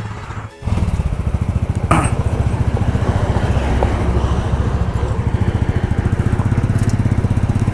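Motorcycle engine running steadily on the move, an even, fast pulsing beat that starts suddenly about half a second in.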